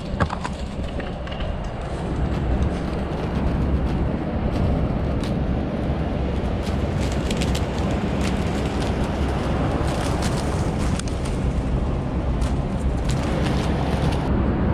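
Steady low hum and rush of running commercial rooftop air-conditioning units, with scattered light knocks and scuffs of footsteps and handling.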